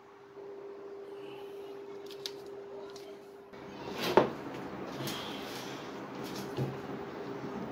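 Light knocks and clicks as a tool is handled on a workbench, with one sharp clunk about four seconds in, over a steady hum.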